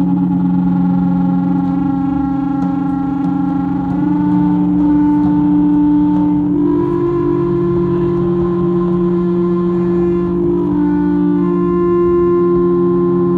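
Sustained electronic drone tones: a steady low note held under higher notes that shift pitch in small steps every few seconds.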